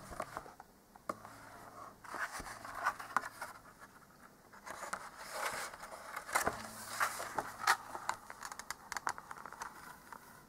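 Pages of a hardback picture book being handled and turned: irregular paper rustles and scrapes, loudest a little past halfway as the page comes over.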